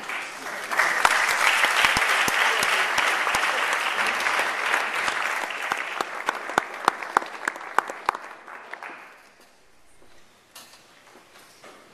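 Audience applauding, swelling about a second in and dying away near the end, with a few sharp claps from close by standing out.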